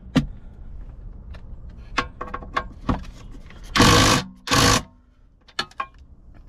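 Light metal clicks of a socket and extension on a bolt, then a Ryobi cordless driver run in two short bursts, each about half a second, a little after the middle, driving a console safe's mounting bolt down. The driver bursts are the loudest sounds.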